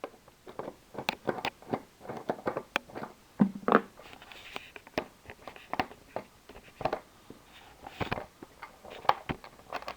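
Irregular clicks, taps and small rattles of hand work with screws and a Phillips screwdriver on the scooter's glove-box panel.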